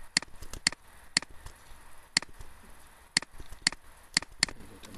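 Computer mouse button clicks: about nine sharp, separate clicks at uneven intervals, some in quick pairs.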